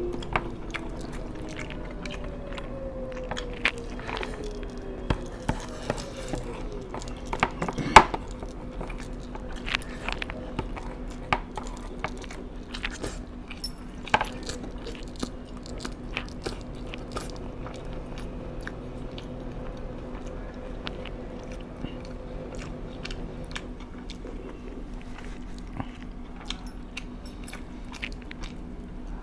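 A person chewing and biting food close to the microphone: wet mouth sounds with many short clicks and crunches, one sharp click about eight seconds in the loudest. A steady low hum runs underneath.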